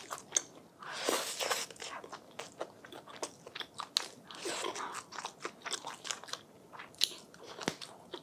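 Close-miked chewing of bánh tráng trộn, Vietnamese mixed rice paper salad: irregular bites, crunching and sharp mouth clicks.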